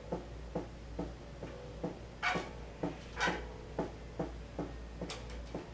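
Yamaha five-string electric bass plucked in a steady, even rhythm of about two to three notes a second, heard as the bare, unamplified string sound. Soft plucks and fret clicks, with a few sharper string snaps.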